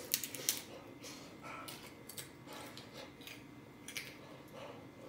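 Close-up crunching of a homemade fried tortilla chip being bitten and chewed: a quick run of loud crunches in the first half-second, then scattered softer crunches.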